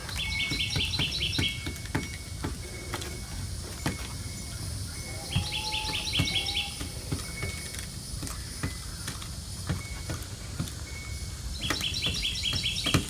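Bird chirping: three bursts of rapid repeated chirps, each about a second and a half long, near the start, in the middle and near the end. Between them a thin high note comes and goes, and light sharp clicks are scattered throughout.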